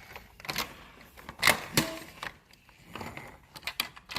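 Toy vehicles being handled: a run of irregular clicks and knocks, the loudest about a second and a half in.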